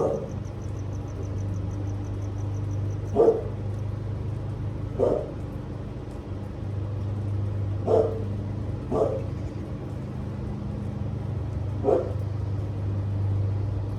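A dog barking, about six single barks a few seconds apart, over a steady low hum.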